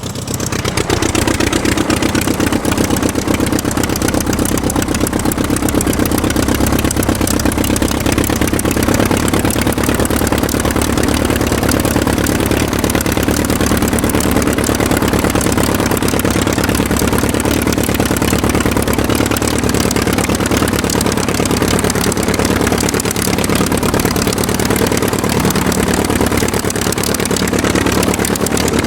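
Aircraft engine running steadily with a fast, even firing pulse, swelling slightly in loudness about a second in and then holding constant.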